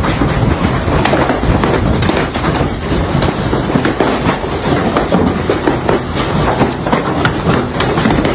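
Heavy hail falling hard: a dense, continuous clatter of many hailstones striking hard surfaces.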